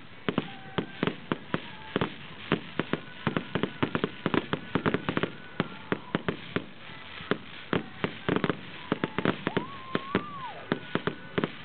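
Fireworks bursting overhead: a rapid, irregular string of bangs and crackles, thickest in the middle and again about eight seconds in.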